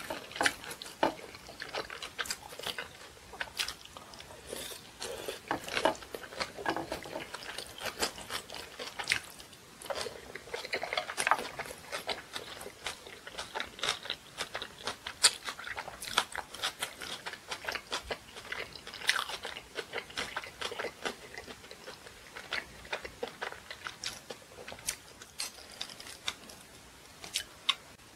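A person chewing food close to the microphone: a steady, irregular run of small wet mouth smacks and clicks.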